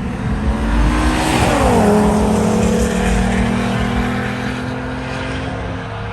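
Car engine revving, its pitch rising, then dropping sharply about a second and a half in and holding steady afterwards.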